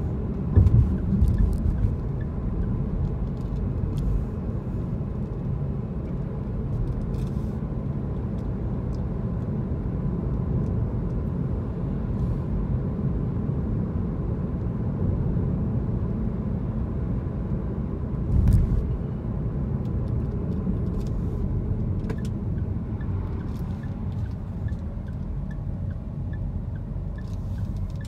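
Car cabin noise while driving: a steady low rumble of engine and tyres, with low thumps about half a second in and again about 18 seconds in. A faint regular ticking, about two a second, comes in near the end.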